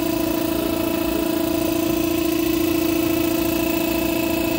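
Air blower running steadily to fluidize a tub of sand, a constant machine hum with one strong mid-pitched tone and overtones above it.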